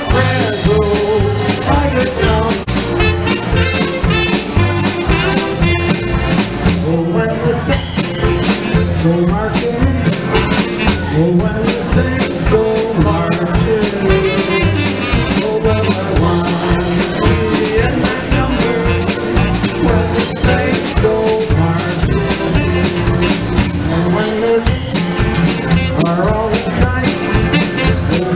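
Live polka band playing a tune on button box accordion, saxophone, drum kit and acoustic guitar, over a steady drum beat.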